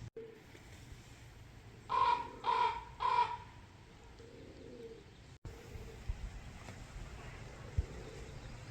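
A crow-family bird gives three harsh caws in quick succession, about half a second apart, around two seconds in.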